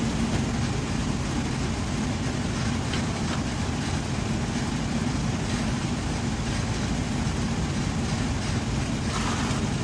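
An engine running steadily at idle, a low, even hum that does not change.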